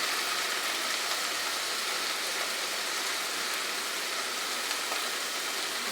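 Onion, capsicum and tomatoes frying in hot oil in a pan: a steady, even sizzle.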